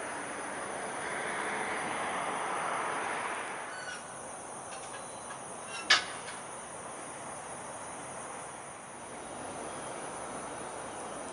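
Steady high-pitched insect buzzing outdoors, with a broad rush that swells over the first few seconds and fades, and a single sharp knock about six seconds in.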